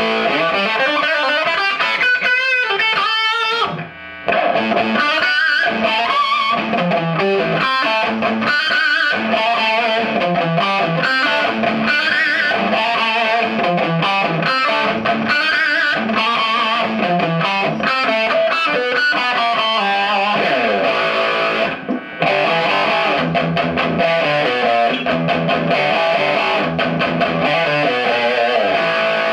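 Electric guitar played through a 1986 Marshall JCM800 4210 valve combo, a run of notes and chords with a light overdrive. The amp is back in working order after repair. The playing breaks off briefly about four seconds in and again near the 22-second mark.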